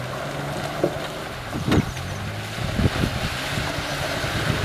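Mitsubishi Pajero SUV's engine running steadily as it drives slowly through mud, with a few sharp knocks over it, the loudest a little under two seconds in.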